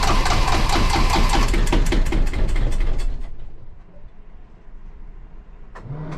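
Sailboat's inboard diesel engine running with a loud, rhythmic knocking after its cooling system and exhaust manifold were put back together, then stopping about three seconds in. A short knock near the end.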